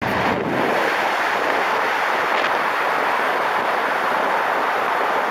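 Steady rushing wind over the microphone mixed with the tyre and traffic noise of a car moving at highway speed through a road tunnel.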